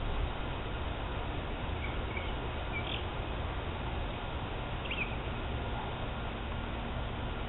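A few short bird chirps, about two to three seconds in and again around five seconds, over a steady low outdoor rumble and hiss.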